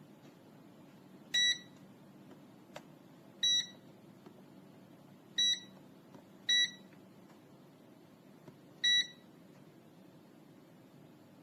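Five short electronic beeps at uneven intervals, each a single high-pitched tone, from the KAIWEETS multimeter and cable-finder kit, with a faint click between the first two.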